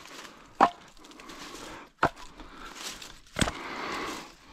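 Short lengths of cut branch being picked up and knocked against each other, with rustling of dry leaves and twigs: three sharp wooden knocks, about half a second in, at two seconds and about three and a half seconds in.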